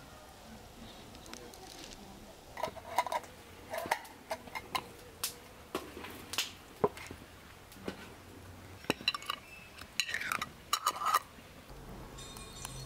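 Glass jars and metal twist-off lids clinking and knocking as filled jars are handled and lidded: a scatter of sharp clinks, some with a short ring, between about two and eleven seconds in.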